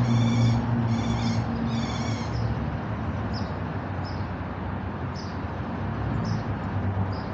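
A bird giving repeated harsh alarm calls, scolding to defend its nest in the tree overhead. Three loud calls come in the first two seconds, then shorter, fainter calls about once a second. A steady low hum runs underneath.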